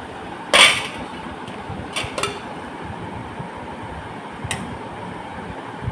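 Metal cookware clanking against a serving bowl as hot milk is poured over vermicelli and stirred with a steel spoon: one loud clank about half a second in, then lighter clinks about two seconds in and again near four and a half seconds, over a steady background hiss.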